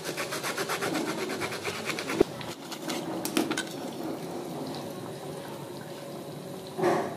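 Knife sawing through the crisp crust of a deep-fried matar kachori on a plate, a rapid rasping crunch at about six strokes a second, broken by one sharp click about two seconds in. Softer crackling follows as the crispy pastry is pulled apart by hand, with a short louder crackle near the end.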